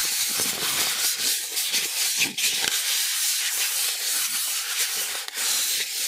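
Pieces of styrofoam (isomo) rubbed against each other: a continuous scratchy, hissing rub made of many quick rasps.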